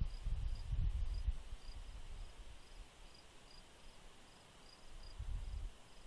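Crickets chirping steadily outdoors in a high, even pulse about twice a second over a soft hiss. Low rumbling gusts of wind on the microphone come in during the first second and again near the end.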